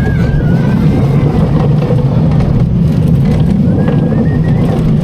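Small family roller coaster (the Ladybug) running on its track: a loud, steady rumble from the train, with brief high wheel squeals just before the start and again near the end.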